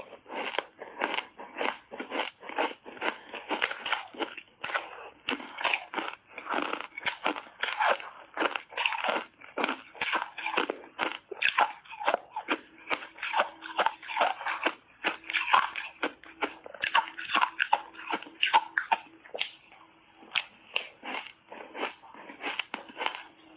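Close-up crunching of shaved ice being bitten and chewed in big bites, sharp crunches coming several times a second without a break, over a faint steady hum.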